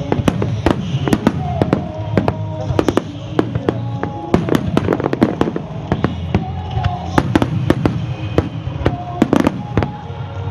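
Aerial firework shells bursting in a rapid barrage: dozens of sharp bangs in quick, irregular succession, with music playing underneath.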